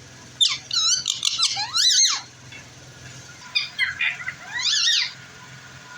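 Green ringneck (rose-ringed) parakeet calling in two bouts of high-pitched, wavering squeaks, the first about half a second in and the second from about three and a half seconds.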